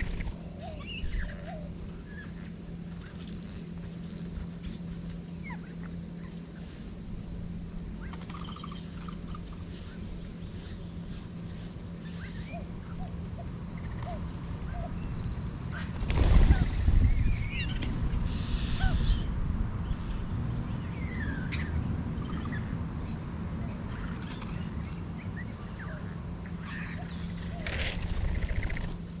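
Small flock of feeding birds, including rainbow lorikeets and mynas, giving scattered chirps and squawks over a steady high insect drone. Just past halfway comes a louder burst of calls with a low rush.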